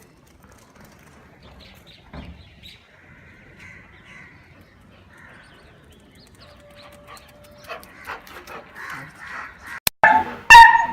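A dog barking: two loud barks close together near the end, after a few seconds of softer short sounds.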